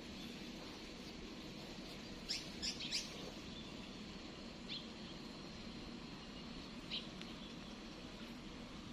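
Small birds giving short, high chirps: a quick run of three about two seconds in, then single chirps near five and seven seconds, over a steady low background hum.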